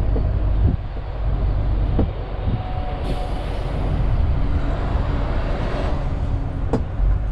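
Cab interior noise of a MAN TGX 470 truck driving slowly: its straight-six diesel engine and the road give a steady low rumble. A few sharp clicks and knocks are heard over it.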